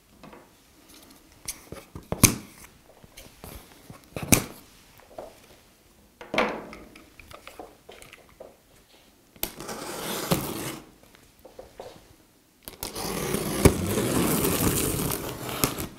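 Utility knife slicing through packing tape on a cardboard box. There are a couple of sharp knocks in the first few seconds, then scraping, tearing cuts. The longest and loudest cut lasts about three seconds near the end.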